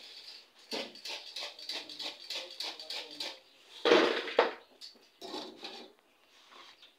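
A wire fryer basket and metal tongs clattering as fried chips are shaken out into a plastic bowl. There are quick rattles at first, a louder clatter about four seconds in, and a few softer knocks after.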